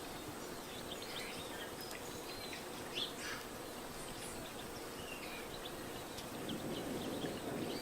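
Scattered short bird chirps and calls over a steady background hiss; the background grows a little louder near the end.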